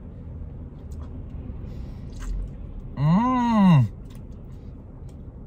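A man chewing noodles, with faint smacking clicks over a low steady rumble. About three seconds in he gives one drawn-out voiced 'mmm' whose pitch rises and then falls.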